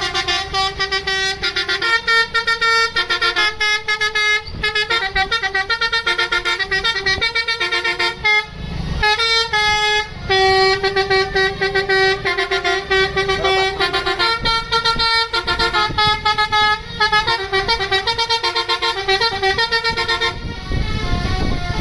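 A bus's Basuri 'telolet' musical horn playing a melody of quick, stuttering multi-tone notes, with two short breaks a little after eight and ten seconds in. The horn stops near the end, giving way to a rumble of engine and street noise.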